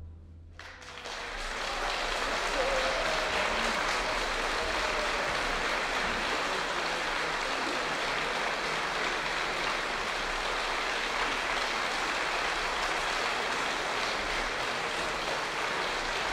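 The last of the orchestra's final chord dies away in the hall's reverberation, then audience applause starts about half a second in, swells within a second or two and carries on at an even level.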